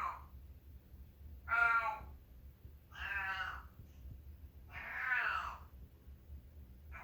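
Long-haired house cat meowing over and over: three drawn-out meows about a second and a half apart, with the tail of one at the start and another beginning at the end.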